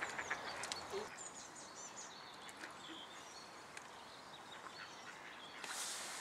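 Faint lakeside outdoor ambience with brief bird calls, a few light clicks early on and a short rustle near the end.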